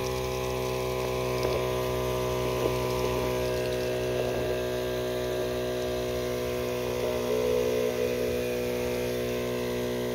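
Electric 12 V diaphragm pump of a Firman FKS16 battery knapsack sprayer running with a steady hum, pushing water out through the spray wand, now powered by a newly fitted battery.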